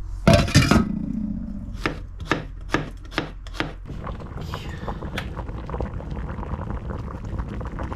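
Kitchen knife chopping on a cutting board: a few heavy strikes, then about five lighter chops roughly half a second apart, followed by a steady low rushing noise.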